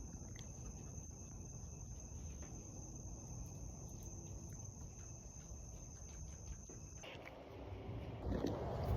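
Insects trilling steadily on one high note over a faint low rumble. The trill stops about seven seconds in, and a louder rushing noise builds near the end.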